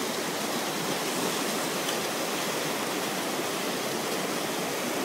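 Whitewater rapids rushing steadily.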